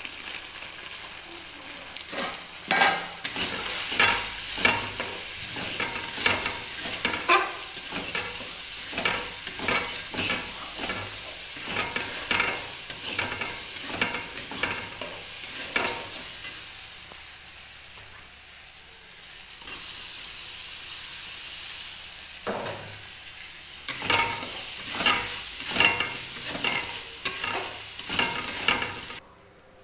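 Spice masala sizzling in hot oil in a metal kadai, stirred and scraped with a spatula in quick regular strokes, about two a second. The stirring stops for several seconds midway while the sizzling goes on, then starts again.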